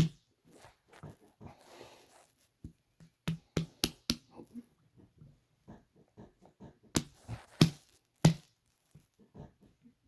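A human stomach growling and sloshing: irregular low gurgles broken by sharp liquid pops, the loudest coming in clusters about three to four seconds in and again around seven to eight seconds in.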